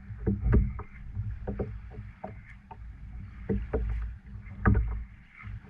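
Irregular knocks and clicks from fishing gear being handled in a small boat, possibly the reel that needs oil, over low uneven thumping.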